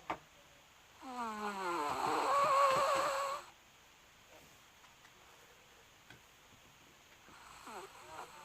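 A sleeping dog lets out one drawn-out, wavering whining moan about a second in, lasting about two and a half seconds. A fainter, shorter one follows near the end.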